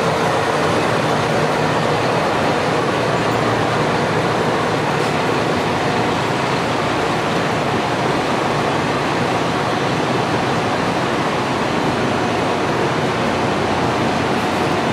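KiHa 125-400 series diesel railcar idling at a standstill, its engine giving a steady, even drone.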